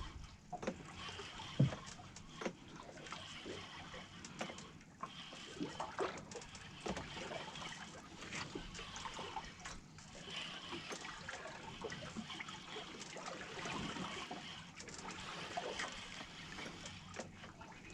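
Water lapping and splashing against the hull of a small fishing boat, with scattered light knocks and clicks.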